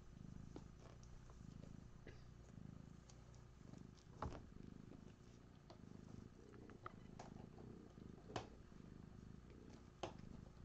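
Domestic cat purring faintly, the low hum swelling and fading in even waves about once a second. A few short, sharp clicks stand out about four, eight and ten seconds in.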